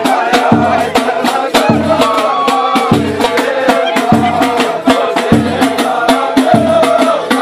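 Ahwach, Amazigh group music: a chorus of men singing over frame drums struck in a steady, fast rhythm.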